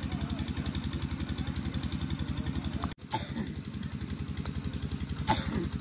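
An engine running steadily at idle with a rapid, even low throb. The sound drops out for an instant about three seconds in, and there is a single sharp crack near the end.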